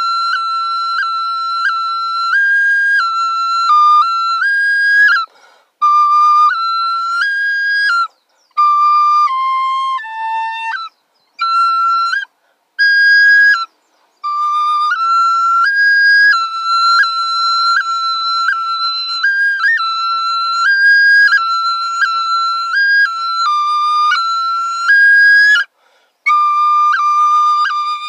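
Small high-pitched flute playing a slow melody of held notes that step up and down among a few pitches, in phrases broken by several short pauses for breath.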